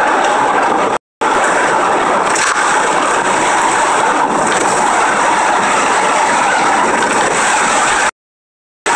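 Steady driving noise of a 2003 Honda Accord V6 on the road, an even rushing sound, with the audio cutting out to silence twice: briefly about a second in and again near the end.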